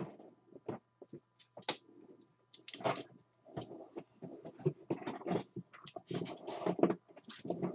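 Packaging rustling and crinkling in irregular bursts as a box of football trading cards is opened and its packs handled.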